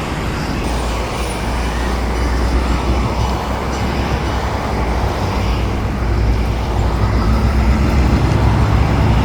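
Low, steady rumble of diesel freight locomotives, growing louder over the last couple of seconds as they throttle up to pull out, over a continuous wash of road traffic noise.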